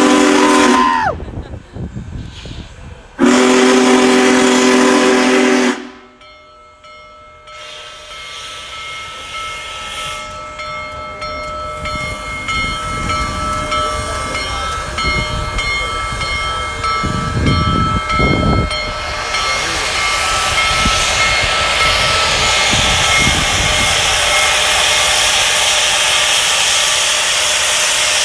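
Union Pacific Big Boy No. 4014 steam locomotive's chime whistle blowing twice: a short blast that sags in pitch as it shuts off, then a longer, louder one a few seconds in. After that a hiss of escaping steam from the cylinder cocks builds steadily as the locomotive draws near.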